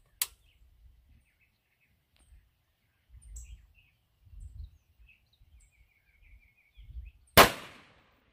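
A single rifle shot from an AR-style .224 Valkyrie rifle about seven seconds in, with a tail that dies away over about half a second. A brief sharp click sounds just after the start.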